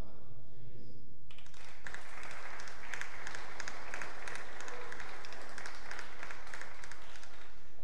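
Audience applauding, starting about a second in and dying away just before the end, with single sharp claps standing out from the crowd.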